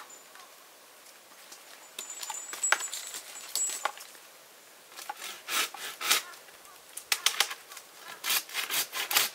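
Rustling and crackling in a string of short bursts from about halfway through, like brush or cut branches being moved. Earlier there are a few soft clicks and a faint, thin, high chirping.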